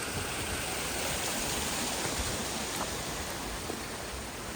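Fast-flowing water rushing steadily, an even hiss.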